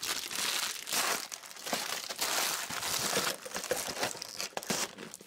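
Plastic trading-card wrapping crinkling and tearing as it is handled, an uneven run of crackles and small snaps.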